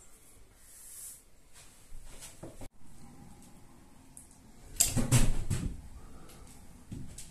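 Small clicks and handling noises from a caulking gun laying sealant along ceiling panel joints, with a louder rustling burst about five seconds in.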